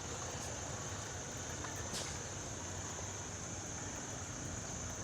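Steady high-pitched chorus of crickets in the trees, over a low rumble of street traffic.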